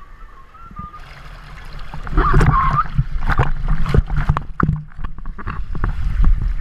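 Rushing water and wind on a GoPro's microphone as a rider goes down a water slide, loud from about two seconds in, with sharp knocks against the slide.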